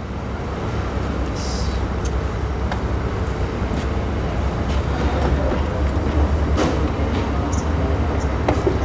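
Steady low rumble of street traffic, growing a little louder about a second in, with a few scattered light clicks.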